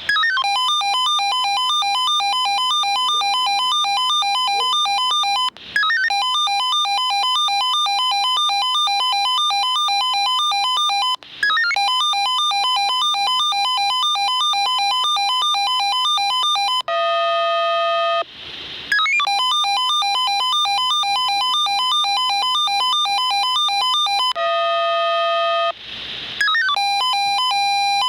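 Swissphone Quattro 98S fire-brigade pager sounding its alert for a test alarm: a loud electronic beep pattern rapidly alternating between two notes, in phrases of about five seconds with short breaks. About seventeen seconds in it switches briefly to a lower steady tone, and near the end to one steady beeping note.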